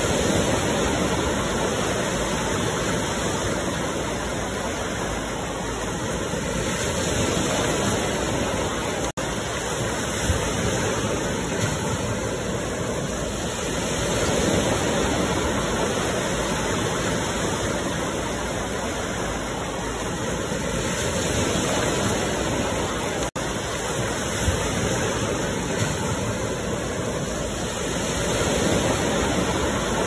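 Ocean surf washing onto the shore: a steady rush of water that swells and eases every seven seconds or so as waves roll in. The sound cuts out for an instant twice.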